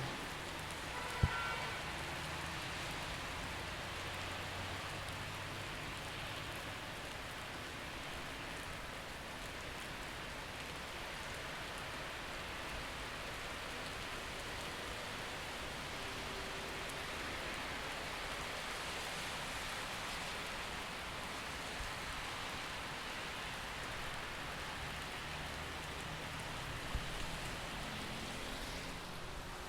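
Steady rain falling in a city street, with the low rumble of passing traffic under it, stronger early on and again near the end. A single sharp click sounds about a second in.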